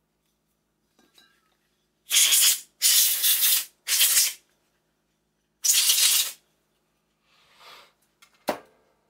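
Four short, loud hissing blasts of pressurised spray or air, each about half a second to a second long, the last after a pause of about a second and a half. A fainter hiss follows, then a single sharp click near the end.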